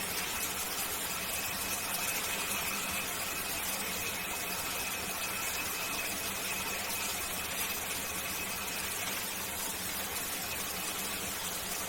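Shower running: a steady hiss of spraying water, with a faint high steady whistle that fades out about nine seconds in.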